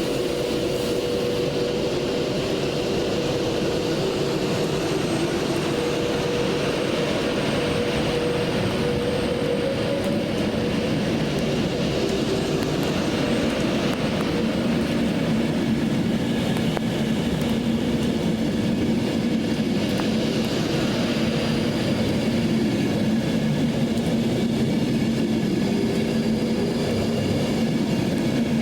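A train running close by, a steady mechanical rumble with a humming tone that rises slightly in pitch about ten seconds in, then a lower steady hum takes over.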